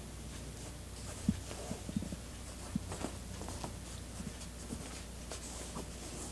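A cat digging at the fabric lining of a dome cat bed with its front paws: irregular soft scratches, rustles and muffled thumps, over a faint steady low hum.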